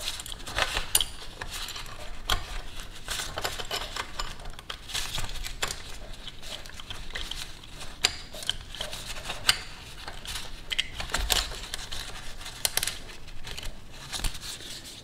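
Honda Grom cam chain and steel cam sprocket being fitted by hand: scattered small metallic clicks and rattles as the chain links shift over the sprocket teeth.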